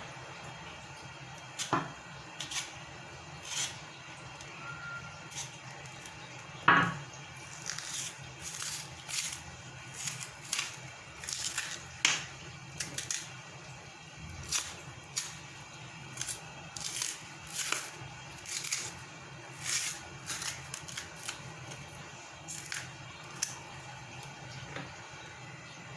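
Light, irregular clicks and taps from hands-on kitchen work, about one every half second to second, with one louder knock about seven seconds in, over a steady low hum.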